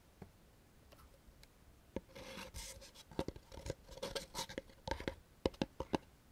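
Molded paper-pulp headphone box insert being handled, scraping and rubbing against the pulp tray, with a run of light taps and clicks starting about two seconds in.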